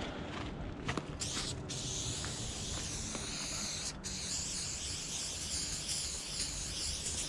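Aerosol spray-paint can hissing as paint is sprayed onto a wall. There are a few short bursts at first, then a long spray that stops briefly about four seconds in.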